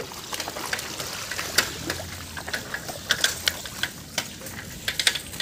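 Floodwater splashing and trickling, with irregular sharp clicks and knocks a few times a second.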